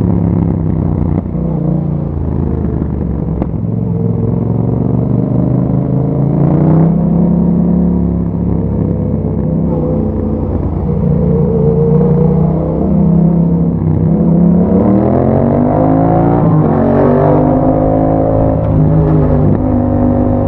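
Yamaha MT-07's parallel-twin engine running through an Akrapovic exhaust while riding, its pitch rising and falling with the throttle. About three-quarters of the way through it revs up strongly, breaks off briefly at a gear change, and settles again.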